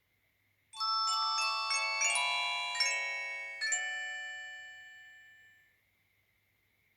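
JWD S300 mobile phone playing its power-off jingle through its small speaker: a quick run of bright chime-like notes about a second in, which then ring out and fade away by about six seconds.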